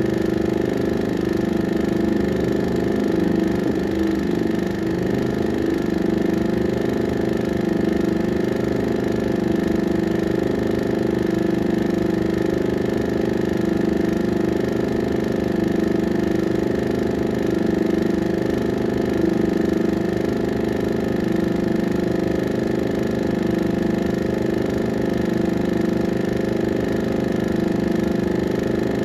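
A 16mm film projector running: a steady mechanical whir and hum with a fast, even flutter from its mechanism.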